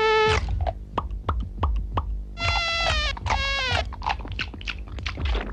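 Mosquito buzzing: three high buzzing whines, a short one at the start and two longer ones around the middle, the last one sagging in pitch as it ends, with scattered light clicks between them.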